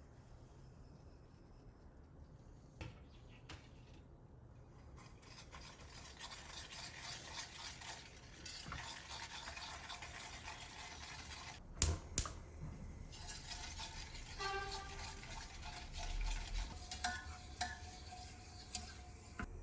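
A spoon or utensil stirring and scraping in a bowl, with two sharp clinks of metal on dishware about halfway through and light ringing touches near the end.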